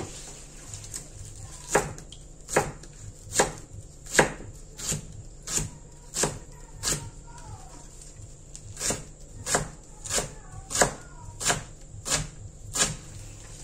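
Kitchen knife chopping spring onions and celery on a wooden cutting board: a steady series of sharp knocks of the blade on the board, about one and a half a second, with a short pause in the middle.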